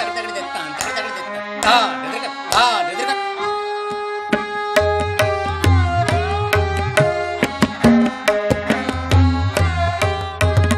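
Tabla solo accompanied by harmonium and sarangi repeating a melodic lehra, with the sarangi sliding between notes. Deep bass strokes on the bayan join the tabla's strokes about five seconds in.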